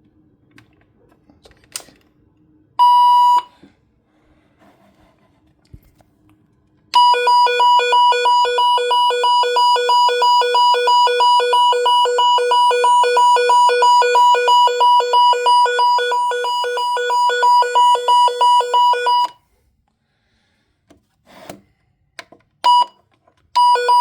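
Weather radio's siren test: a short beep, then about twelve seconds of a loud, rapidly pulsing two-tone siren that cuts off suddenly. More short beeps follow near the end.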